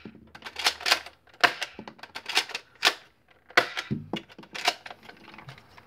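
Nerf Vortex Proton disc blaster being primed and fired from its 3D-printed disc hopper: a series of sharp plastic clacks and snaps, some in quick pairs, with a duller thump about four seconds in.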